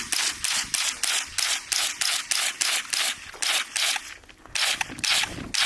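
Rapid gunfire at a shooting range, shots coming about four a second, with a short pause about four seconds in.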